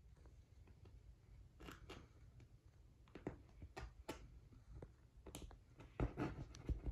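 Faint handling noise: scattered small clicks and rustles of hands working with small parts, a few sharper knocks near the end, over a low steady hum.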